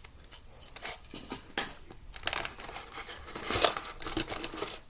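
Light crinkling and scattered small clicks as small items are handled, with a few louder crackles along the way.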